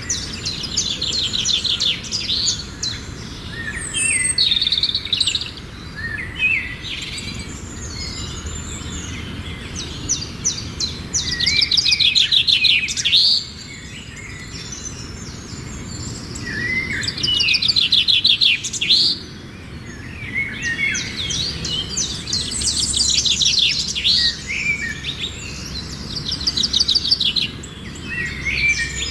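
A songbird singing: repeated phrases of fast, high trills, each a second or two long, recurring every few seconds, over a steady low background noise.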